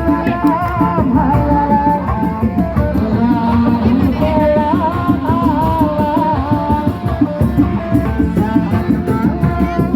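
Kuda lumping ensemble music: fast hand-drum patterns on kendang with a high, wavering, ornamented melody running over them.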